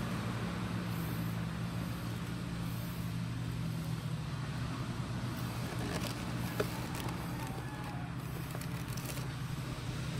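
A steady low hum of a running motor, with a few faint clicks about six and a half seconds in.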